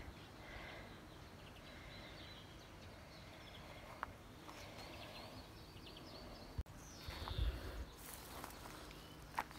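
Faint outdoor garden ambience with small birds chirping now and then. A short low rumble on the microphone, the loudest sound here, comes about seven seconds in, and a couple of sharp clicks come near the middle and near the end.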